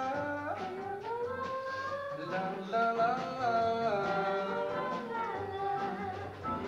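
Pop band music: a sung melody over electric guitar and drums.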